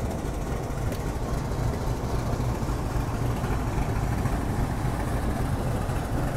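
Diesel locomotive engine running steadily, a low even drone.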